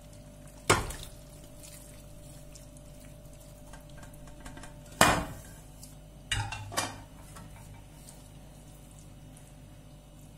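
Metal pressure-cooker pot clanking against the gas hob grate: four sharp clanks, one about a second in, one at about five seconds and a quick pair shortly after. The first clank leaves the pot ringing for a few seconds.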